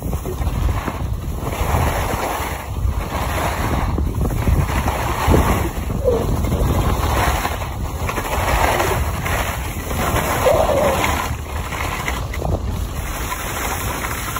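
Wind rushing over a handheld phone's microphone while skiing downhill, mixed with skis scraping over firm groomed snow. The rush swells and eases about every second and a half as the skis turn.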